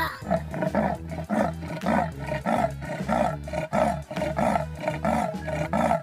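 Leopard calling: a quick, even run of short hoarse strokes, about three or four a second, over a low steady background.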